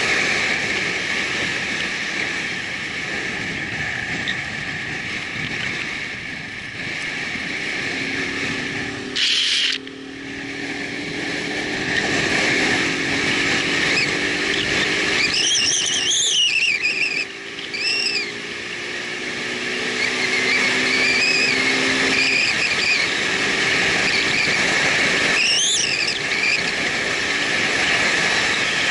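Motorcycle riding at steady speed: constant wind and road rush over the mic, with the engine note underneath slowly rising. There is a brief loud burst about nine seconds in, and a few short high squeaks later on.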